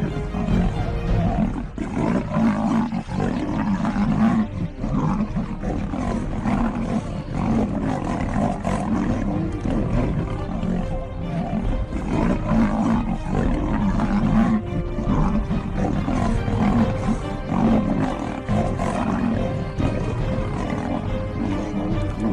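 Big cats roaring over and over as they fight, with music playing underneath.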